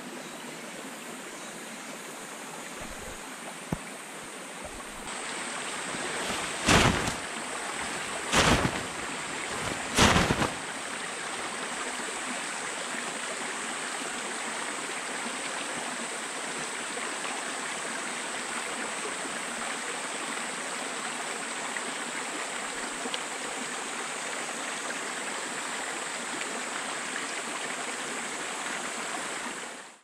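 Mountain stream water running steadily, joined about five seconds in by a steady high buzz of insects. Three short, loud noises come in quick succession between about seven and ten seconds in.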